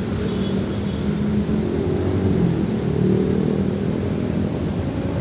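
Steady low engine drone with a constant hum, unbroken throughout.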